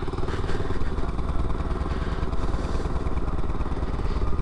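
Small 50cc Chinese pit bike engine running steadily, a rapid even pulse that holds the same pitch without revving up or down.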